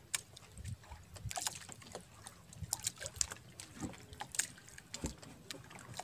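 Sea water lapping and sloshing against the hull of a small fishing boat, with scattered small splashes and knocks.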